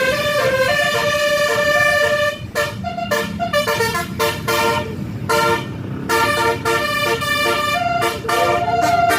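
Bus 'telolet basuri' horn playing a melody in stepped notes. Held notes give way to a run of short, choppy notes about two and a half seconds in, and the notes are held again near the end.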